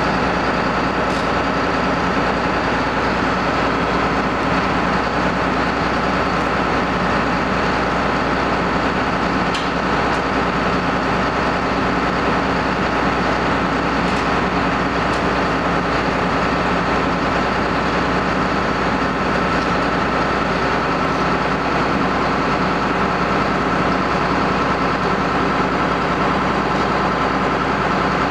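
John Deere 9600 combine running steadily while harvesting wheat: its diesel engine and threshing machinery make a constant loud drone with a steady high whine.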